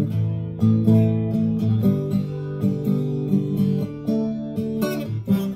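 Acoustic guitar strummed in a steady rhythm, chords changing, with no singing over it: an instrumental break between verses of the song.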